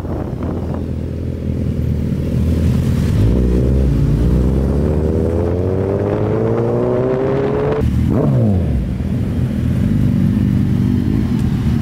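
Sport superbike engines accelerating, the pitch climbing steadily for several seconds. About eight seconds in it breaks off sharply and falls away, then a motorcycle engine idles steadily.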